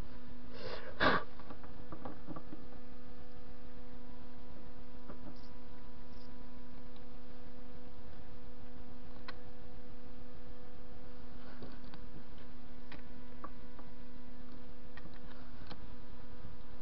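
TV-16 lathe running with a steady electric hum. About a second in there is a sharp knock, and the chuck then spins the steel washer blank with a few faint ticks.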